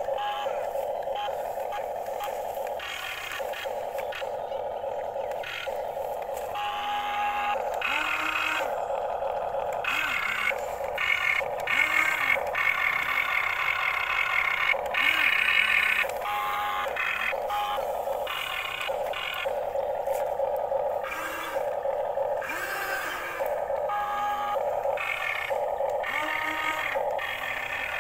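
Electric gear motors of a radio-controlled toy excavator whirring in short runs that start and stop over and over as the boom, arm and bucket are worked, the pitch rising and falling as each motor speeds up and slows.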